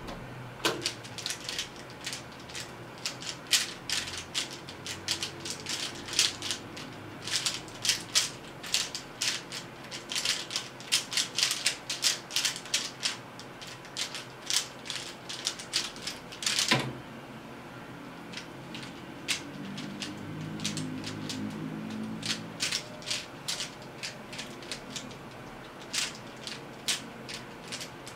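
DaYan ZhanChi 3x3 speedcube turned fast in a timed solve: a dense run of plastic turning clicks for about sixteen seconds, ending in a single sharp knock as the solve ends. After that the cube is turned again, with sparser clicks.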